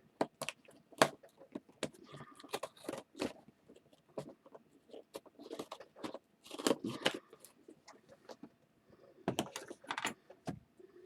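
A box being opened by hand: irregular scraping, tearing and crinkling, with scattered clicks and taps as it is pulled and handled.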